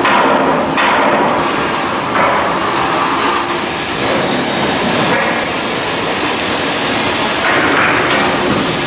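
Loud, continuous shipyard work noise from steel hull-block assembly and outfitting: a mechanical din with metal clanking, changing character every second or so.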